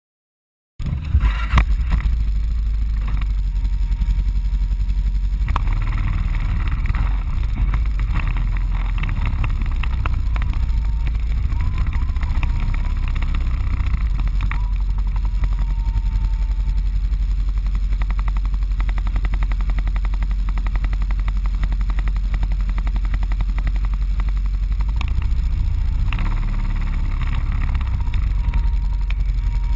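ATV engine heard from on board, running steadily at low trail speed: a continuous low rumble that starts just under a second in.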